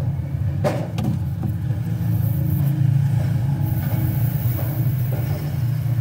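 A steady low rumble, like a motor or engine running, with a couple of light knocks about a second in.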